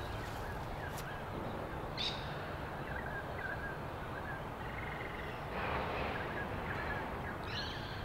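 Outdoor ambience with several birds calling now and then from the trees: short chirps and a brief trill about three seconds in, over steady background noise.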